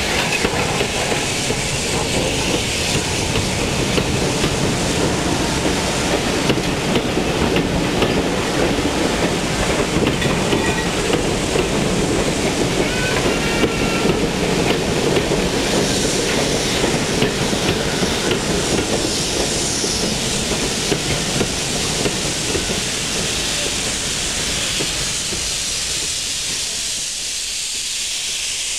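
Steam-hauled passenger train passing close by: a steady rumble and clatter of locomotive and carriage wheels over the rails. The rumble dies away over the last few seconds, leaving mostly a hiss of steam.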